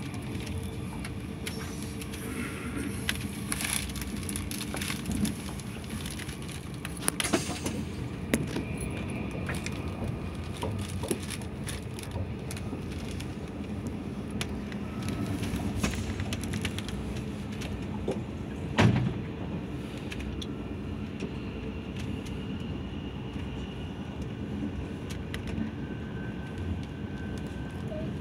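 Cabin noise of an Al Boraq high-speed train (Alstom Euroduplex double-decker) running along the line: a steady rumble, with scattered light clicks and one louder knock about two-thirds of the way through.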